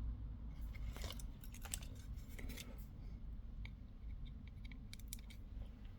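Scattered faint clicks and light scrapes of small hand tools working on a thermostat's circuit board during soldering, over a low steady hum.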